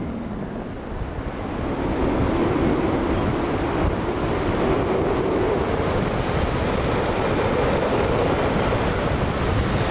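Air rushing over the microphone of a paraglider going into a spiral dive. It grows louder about two seconds in as the descent steepens, then holds steady.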